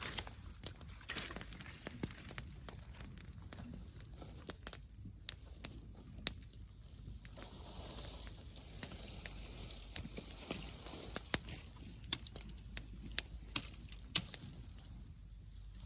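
Wood bonfire crackling, with irregular sharp pops and snaps.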